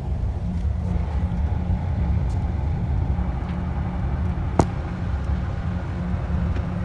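Steady low drone of a patrol boat's engines working as she comes alongside another vessel. One sharp click sounds about two-thirds of the way through.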